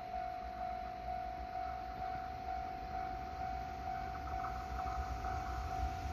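Japanese level-crossing warning bell ringing, a steady electronic ding repeating about twice a second. A low rumble grows under it in the last couple of seconds as a train approaches.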